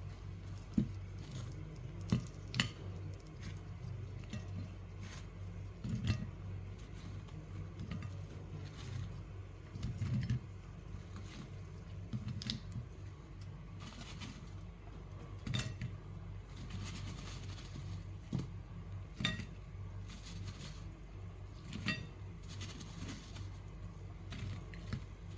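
Kitchenware clinking and clattering: scattered sharp knocks and clinks of dishes and utensils, over a steady low hum.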